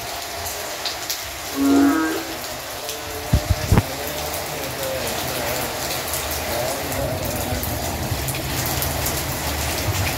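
Steady rain falling on a paved street. About two seconds in, a short voice calls out, and a few sharp low thumps follow a second and a half later.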